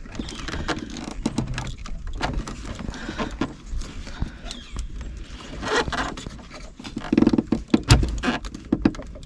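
Hands working plastic wiring connectors and trim under a Jeep TJ's steering column: scattered clicks, rattles and scrapes, with a sharper knock a little before the end.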